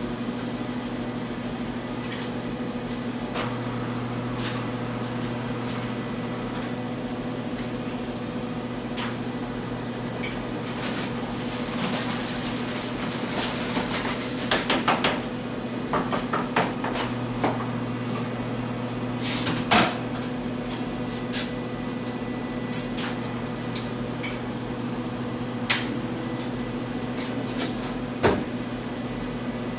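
Dry Custer feldspar powder pouring into a plastic barrel, a soft hiss from about eleven seconds in, ended by a quick run of knocks as the emptied bucket is tapped out. Further single knocks and clunks follow, the loudest about twenty seconds in. A steady electrical hum runs underneath throughout.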